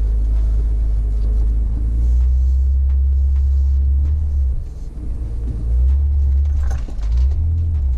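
Low, steady rumble heard inside the cab of a Honda Ridgeline pickup driving slowly over a rough dirt trail: engine and tyres working over the uneven track, easing off briefly about halfway through.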